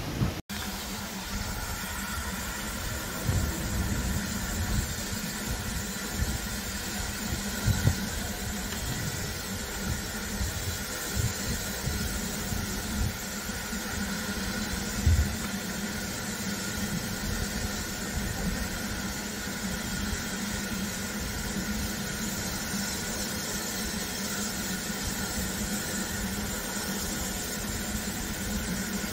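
Ivatt Class 2MT tank locomotive No. 41241 standing in steam, hissing steadily with a low hum beneath, with a few soft low bumps.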